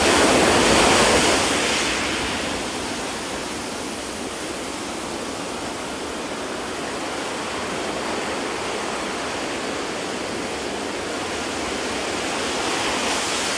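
Ocean waves and surf from a field recording, played back over loudspeakers into a lecture hall: a steady wash of surf noise, louder in the first two seconds and swelling again near the end.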